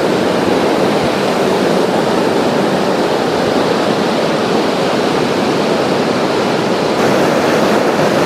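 Jogini waterfall pouring down in monsoon flow: a loud, steady, unbroken rush of falling water, a little louder near the end.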